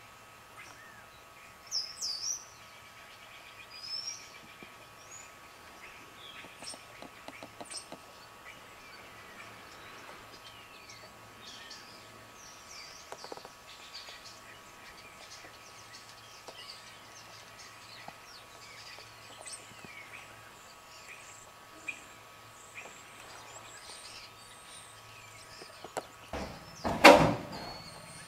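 Small birds chirping and twittering on and off, with a loud bump near the end.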